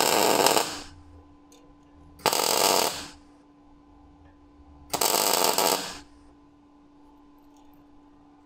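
Electric arc welder laying three short tack welds, each a burst of arc noise under a second long, about two to three seconds apart, fixing a steel rod to a steel table. A faint steady hum runs underneath.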